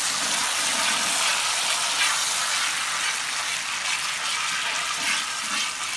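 Butter, brown sugar and cream sizzling and bubbling in a hot frying pan as a caramel sauce cooks, with a spatula stirring through it. The sizzle is steady and somewhat stronger at first.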